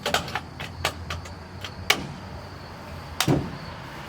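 A series of sharp clicks and knocks from hard objects being handled, with louder knocks about two seconds in and about three seconds in.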